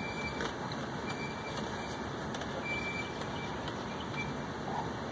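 Steady rushing of a car's air-conditioning blower inside the cabin, with a few faint clicks from the center console being handled.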